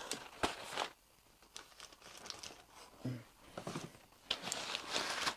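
Packaging rustling and crinkling as a lamp is pulled out of its wrapping, in scattered crackles that grow busier in the last second.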